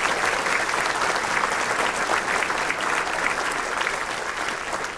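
Large audience applauding: dense, steady hand clapping that eases off slightly near the end.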